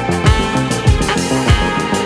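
Background music: an instrumental track with a steady drum beat, a low thump a little under twice a second, under sustained pitched instruments.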